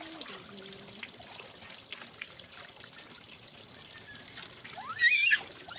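Water trickling steadily. About five seconds in, a loud, high-pitched, wavering squeal cuts in briefly.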